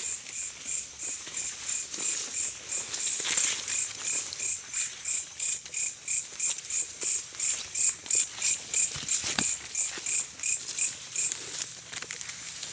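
A night insect, cricket-like, chirping in an even rhythm of about four pulses a second, stopping near the end.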